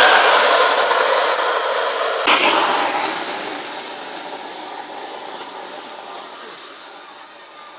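Homemade gravity cart's wheels grinding and rattling on asphalt as it rolls past, a loud rough rolling noise that fades away steadily. There is a sharp click about two seconds in.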